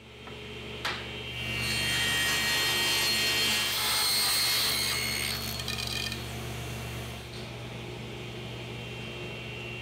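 Table saw cutting a rabbet into a poplar molding strip: the motor and blade hum steadily, and a louder, higher cutting noise runs for about four seconds while the wood is fed through. After that the blade keeps spinning without a load.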